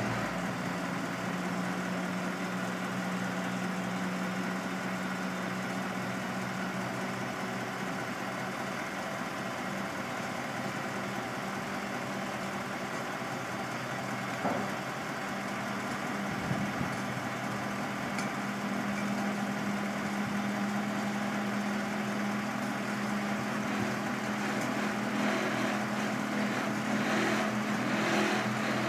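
Hook truck's engine running steadily while it powers the Palfinger hooklift lifting a loaded roll-off dumpster off the ground. Its hum steps up slightly in pitch about halfway through, just after a single knock.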